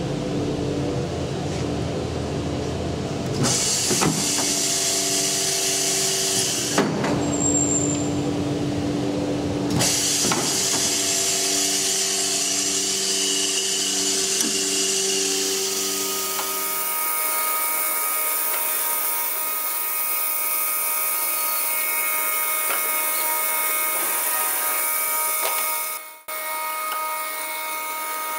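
CNC router spindle running and cutting into a wooden door, a steady whining noise with several held tones that shift to a higher set about two-thirds of the way through, with a brief dip in level near the end.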